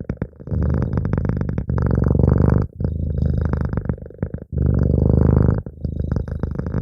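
Domestic cat purring close to the microphone, rising and falling with its breathing: smoother, louder stretches alternate with rougher, choppier ones every second or two.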